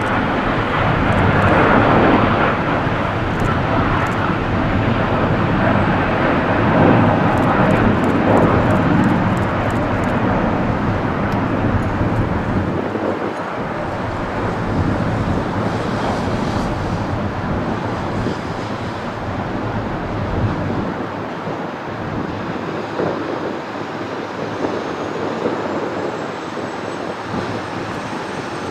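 Boeing 787-9 jet engines at take-off thrust as the airliner lifts off and climbs away: loud, steady jet noise that peaks about two seconds in and slowly fades as the aircraft recedes.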